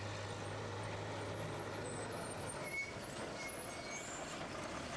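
Steady background noise with a low hum that fades out about three seconds in.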